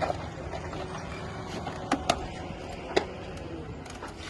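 Scattered light clicks and knocks of hands and tools working on a car's dashboard trim, a few sharp ones about two and three seconds in, over a steady low hum.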